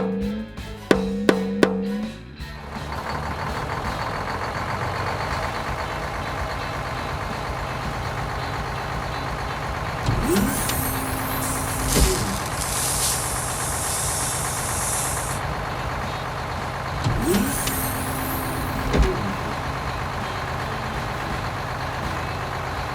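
Heavy work vehicle's diesel engine running steadily, with a high hiss of air twice, like an air brake releasing.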